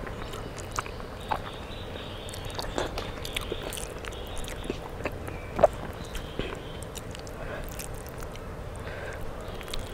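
Hand-eating sounds: chewing, and fingers mixing water-soaked rice (panta bhat) on a leaf, giving soft wet squishes and scattered small clicks, one of them louder about halfway through.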